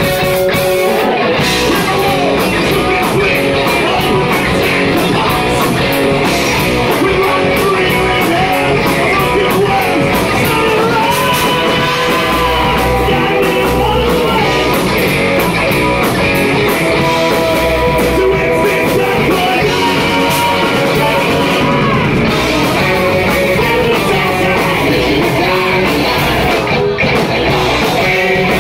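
Loud live rock band playing: distorted electric guitars, bass and drums, with a screamed lead vocal through the PA.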